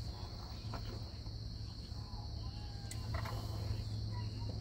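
Steady high-pitched chorus of insects from the wooded bank, with a low steady hum underneath and a brief faint knock about three seconds in.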